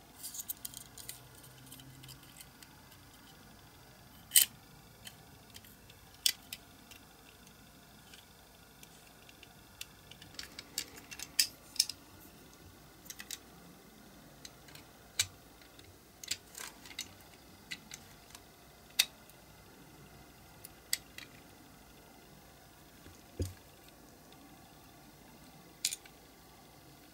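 Scattered small clicks and taps at irregular intervals, a few of them sharper, as the baseplate and wheels of a diecast model car are handled and pressed into its body.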